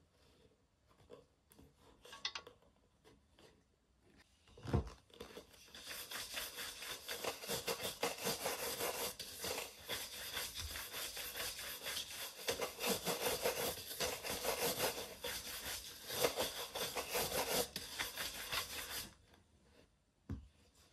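Horsehair shoe brush swept rapidly back and forth over a leather double-monk-strap shoe, a dense run of quick brushing strokes lasting about thirteen seconds and stopping abruptly. A low thump comes a second before the brushing starts.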